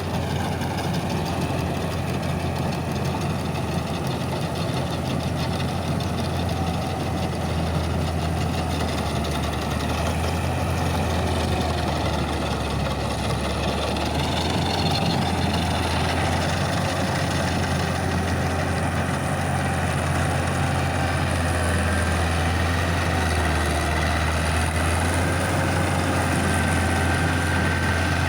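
Combine harvester's diesel engine running steadily with a deep drone, growing slightly louder over the stretch.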